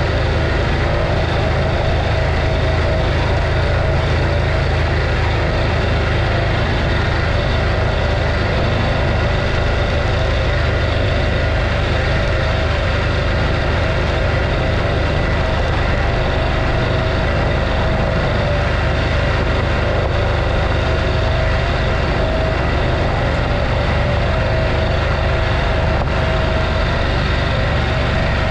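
Adventure motorbike engine running steadily while riding, with no noticeable change in revs.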